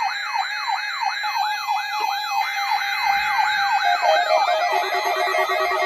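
Electronic siren yelping, its pitch rising and falling about three times a second. Near the end a second overlapping siren sweep and a steady lower tone join in.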